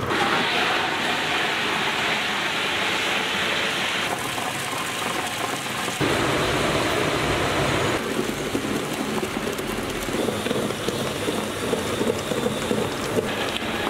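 Wet grinder's stone roller turning in its steel drum, grinding soaked urad dal with water into batter: a steady, gritty churning noise that shifts abruptly in tone a few times.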